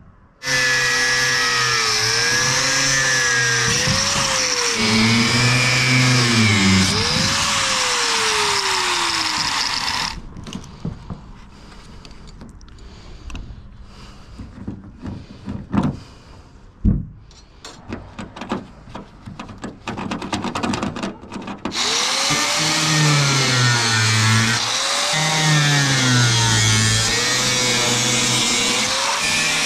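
Corded angle grinder grinding metal on the bus's roof, its motor pitch sagging and recovering each time it is pressed into the work. It stops about ten seconds in, leaving a stretch of quieter handling knocks and clicks, then runs and grinds again from about two-thirds of the way through.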